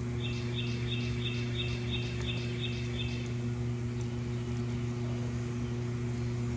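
A bird gives a quick, even series of about nine short chirps on two pitches, roughly three a second, which stop about three seconds in. A steady low hum runs underneath.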